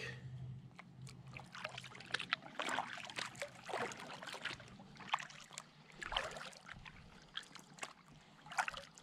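Kayak paddle strokes: a double-bladed paddle dipping into the water again and again, with splashes and drips trickling off the blades.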